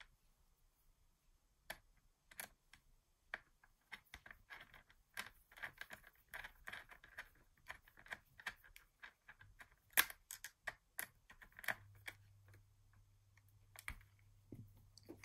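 Light, irregular clicks and taps of a screwdriver and small metal and plastic parts on a Brother KH840 knitting machine carriage as the yellow screws holding its casing are put back in, with one sharper click about ten seconds in.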